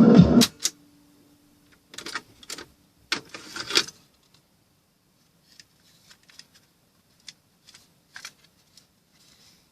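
Cassette playback of a song cuts off about half a second in, followed by a brief low hum and then clusters of sharp clicks and plastic clatter around two and three seconds in, thinning to scattered faint ticks.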